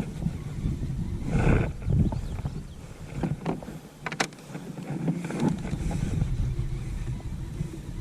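Wind buffeting the microphone on a kayak, an uneven low rumble throughout, with a few sharp clicks and a brief rush of noise about a second and a half in.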